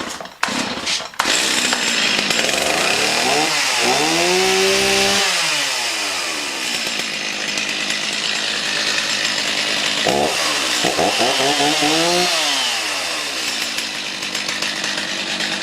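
Stihl MS310 two-stroke chainsaw cold-started: a few quick pulls on the starter cord, then it catches about a second in and keeps running. It is revved up and back down twice, once a few seconds in and again around ten seconds.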